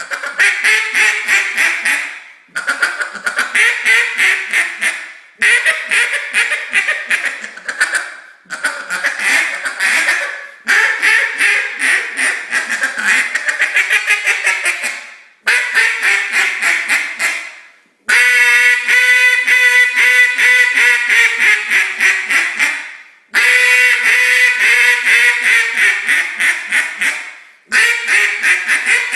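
Committed Custom Calls Big Bore duck call blown in runs of quick quacks, each run fading away before a short break. About two-thirds of the way through, one run holds a steadier, drawn-out tone for several seconds.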